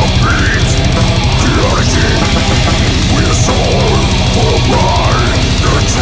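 Death metal track: heavily distorted guitars over very fast, even kick-drum strokes, loud and dense throughout.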